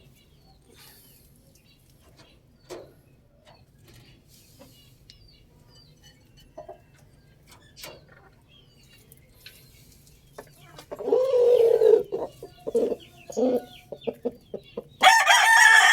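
Rooster: a long quiet stretch with a few faint chirps and clicks, then a run of loud, choppy clucking about eleven seconds in, and the start of a loud crow near the end.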